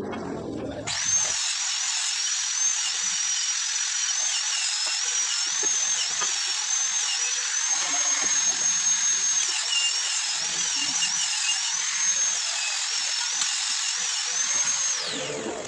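A high-speed power tool running during turbocharger assembly: a steady high whine over a hiss, wavering a little in pitch, that winds down with a falling pitch about fifteen seconds in.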